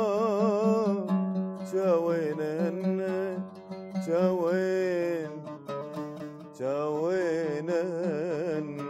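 A man singing an Iraqi song in long, wavering held notes, in several phrases, to his own oud accompaniment.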